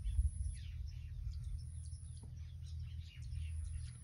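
Small birds chirping in many short, quick notes, with a high thin buzz that comes and goes every second or two, over a steady low rumble.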